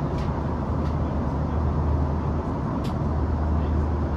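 Steady cabin rumble inside an Airbus A340-300 airliner, a deep even drone of engines and airflow, with a couple of faint clicks.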